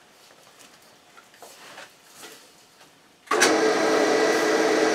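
Hydraulic power unit switched on about three seconds in: its motor and pump start suddenly and run steadily with a constant whine, getting hydraulic fluid flowing. Before it, a few faint handling sounds.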